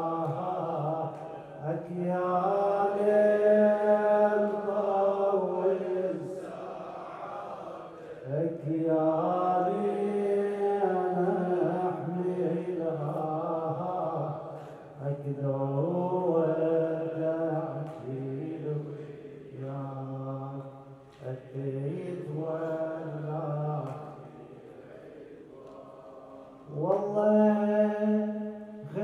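A man's solo voice chanting an Arabic Muharram lament in long, drawn-out melodic phrases, with short breaths between them. A quieter phrase comes a little before the end, followed by a loud one.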